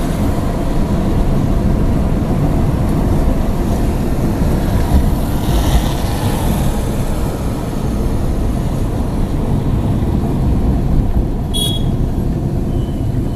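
Steady low road and engine rumble heard from inside a moving car. A short sharp click about 11.5 seconds in, and a thin high tone starting near the end.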